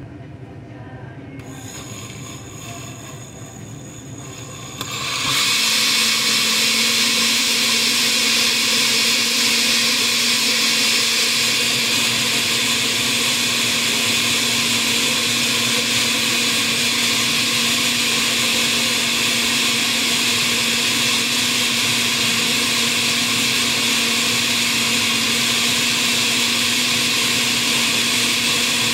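Oster glass-jar blender running, mixing a liquid flan batter of eggs, milk and cheese. It runs quieter for the first few seconds, steps up to a loud steady whir about five seconds in with a steady low hum under it, and cuts off near the end.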